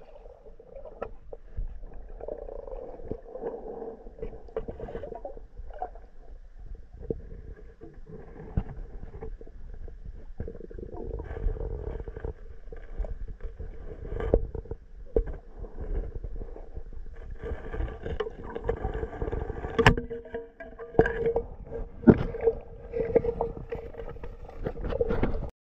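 Muffled underwater sound picked up by a camera submerged in a river: a low rumble of moving water with a steady hum, and scattered knocks and clicks, one sharp knock about twenty seconds in.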